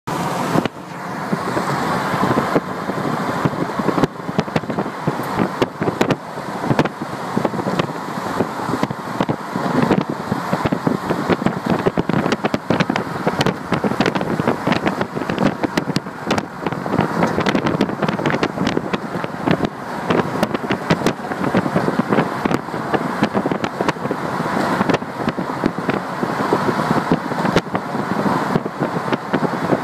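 Car road noise heard from inside the moving car, with wind buffeting the phone's microphone and a steady crackle of small knocks and clicks.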